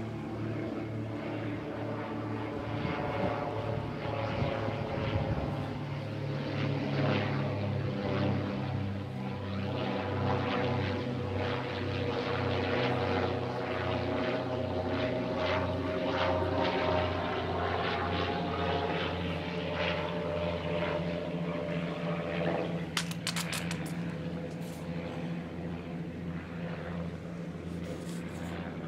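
A propeller aircraft drones steadily, its engine note wavering slowly in pitch. A few light clicks come near the end.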